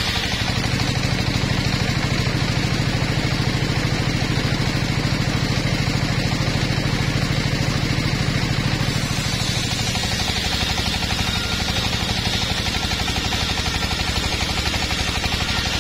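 Engine-driven circular saw bench (portable sawmill) running steadily while its large blade rips logs lengthwise, a fast even engine beat underneath. The low part of the sound drops back a little about ten seconds in.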